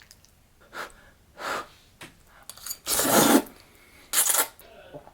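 A person's breath: four short, forceful puffs or exhales, the last two the loudest.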